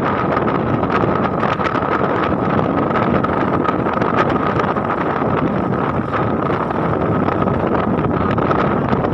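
Wind rushing over the microphone of a moving vehicle, with the vehicle's running noise underneath and a steady high tone.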